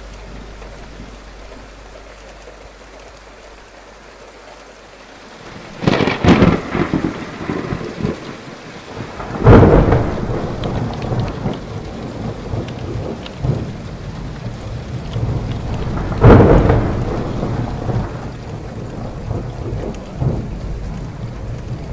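Thunderstorm: a faint low hum at first, then about six seconds in steady rain starts with a clap of thunder. Two more loud thunderclaps come about ten and sixteen seconds in, with the rain running on between them.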